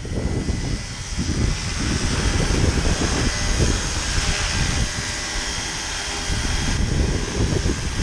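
Roban 700 Black Hawk electric RC scale helicopter in flight, its rotor and motor giving a steady whine over the whoosh of the blades. Wind buffets the microphone in a low rumble.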